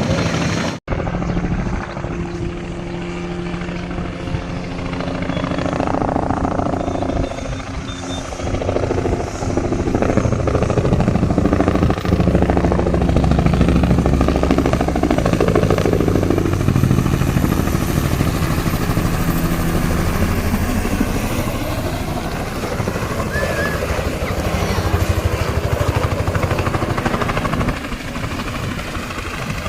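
Helicopter running close by: a steady low rotor beat with engine and rotor-wash noise. The sound drops out for an instant about a second in.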